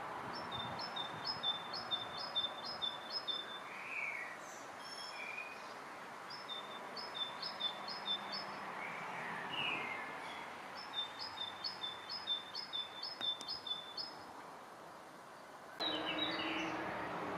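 A songbird singing the same phrase of quick, high two-note calls three times, with pauses between, over a steady outdoor background hum. A few other bird calls come in between. Near the end the background hum turns suddenly louder.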